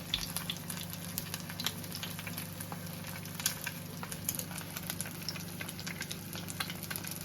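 Egg frying in hot oil in a pan: a steady sizzle with frequent small pops and crackles, over a low steady hum.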